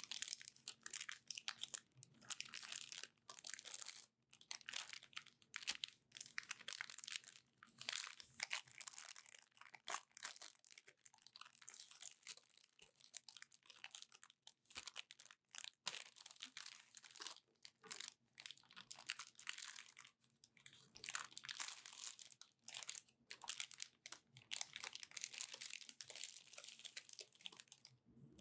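Clear plastic wrapping crinkling and crackling as hands pull it off a paperback book, in irregular rustles with short pauses between.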